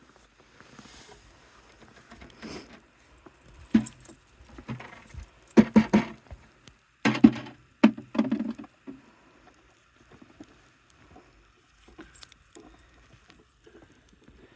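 Footsteps crunching through deep fresh snow: a few bunched, uneven steps in the middle, quieter scuffs before and after.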